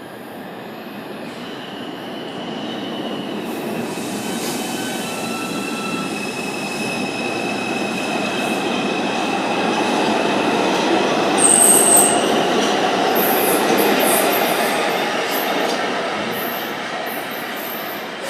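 R142 subway train running along the rails through the station, its wheels squealing with thin high tones over the rumble. The sound builds to a peak about two-thirds of the way through, then eases off.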